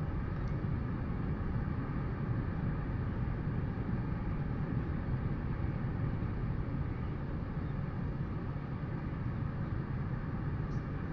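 Steady low wind rumble on an outdoor nest camera's microphone, even throughout with no distinct calls or knocks.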